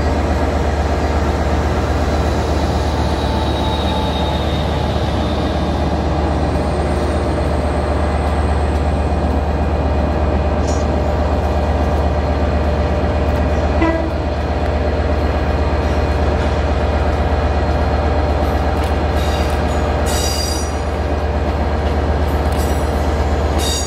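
Diesel multiple unit engines running steadily with a deep hum as a two-car diesel unit draws into the platform. A short click comes about halfway through, and brief high squeals follow a few seconds before the end.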